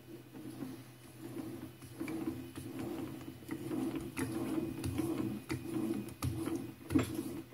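A freshly cut steel thread being screwed onto its mating part by hand in a trial fit: irregular metallic clicks and scraping that grow busier about two seconds in, with one sharper click near the end, over a steady low hum. The thread is loose at the start and tight at the end, which the maker puts down to his lathe cutting a slight taper.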